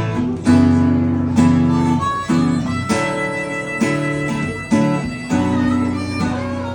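Live instrumental song intro on acoustic guitar, with chords struck at a steady pace and a held, sustained melody line over them.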